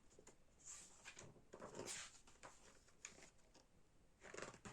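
Faint rustling and soft knocks of a K-pop album's paper contents being handled, a few brief scrapes scattered through an otherwise quiet stretch.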